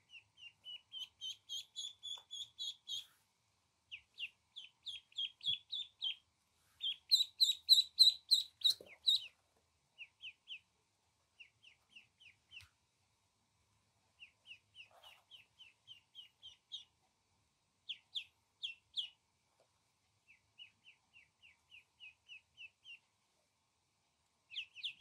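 Ducklings peeping: runs of short, high chirps, several a second, with brief pauses between runs and the loudest run about a third of the way in.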